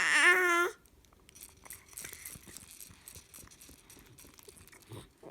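Baby babbling, a high wavering vocalisation that stops under a second in, followed by faint clicks and rustles of handling.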